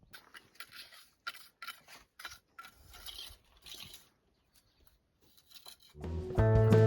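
A run of short, irregular scuffs and rustles for about four seconds, then a pause, and strummed guitar music starting near the end.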